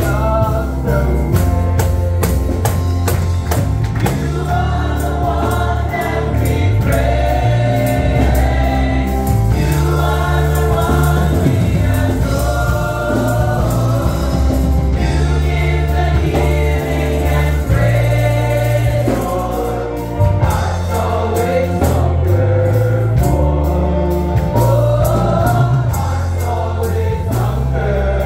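Praise team singing a gospel worship song in chorus with a live band: massed voices over a bass line and a steady drum beat.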